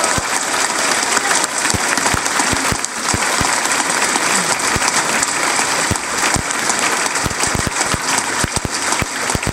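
Large audience applauding steadily: a dense patter of many hands clapping at once, holding at an even level.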